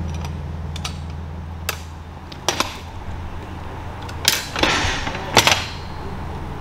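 Diesel locomotive engine running with a steady low hum, with several sharp clicks over it, the loudest about four and five and a half seconds in.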